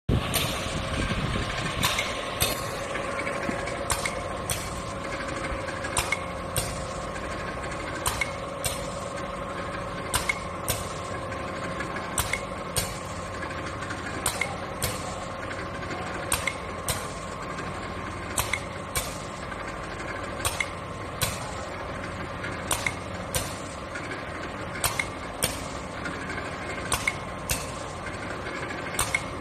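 Automatic rotor pump paste filling machine running: a steady machine hum with pairs of sharp clicks repeating about every two seconds as it cycles.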